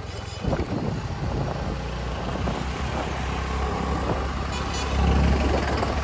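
Motor scooter riding along a road: a steady low engine and road rumble with wind on the microphone, stepping up about half a second in and loudest around five seconds.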